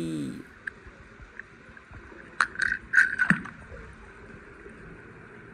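A small toy car dropped into a swimming pool: a short cluster of splashes and plops about two and a half to three and a half seconds in, then a faint steady water hiss.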